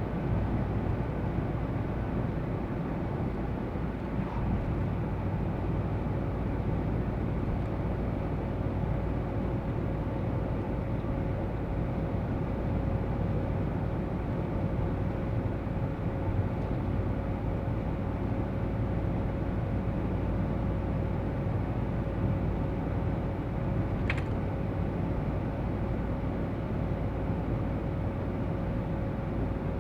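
Steady engine and road noise inside the cabin of a GAZ Sobol 2752 van on the move, a low hum with a faint steady whine over it and one short tick late on.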